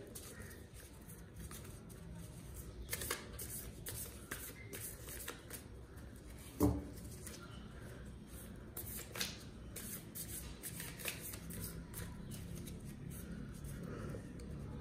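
A deck of tarot cards being shuffled by hand, a quiet run of soft card-edge rustles and flicks, with one louder soft knock just before the middle.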